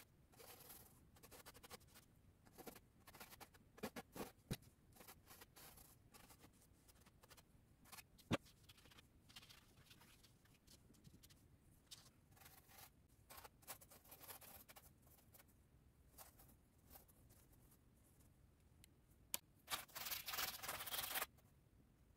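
Faint scratching of a paintbrush's bristles stroking and scrubbing across canvas in short, uneven strokes, with a single sharp tap about eight seconds in and a longer, louder run of scrubbing near the end.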